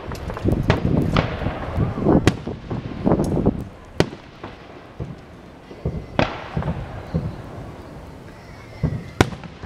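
Aerial fireworks shells bursting with sharp bangs. A dense run of reports comes in the first few seconds, then single booms about four, six and nine seconds in.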